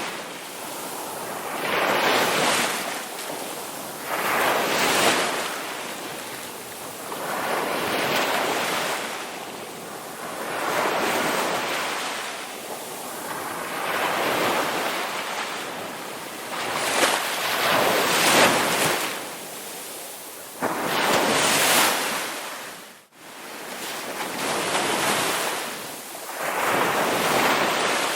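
Sea waves breaking and washing up a beach, surging and easing about every three seconds, with one brief sudden gap in the sound late on.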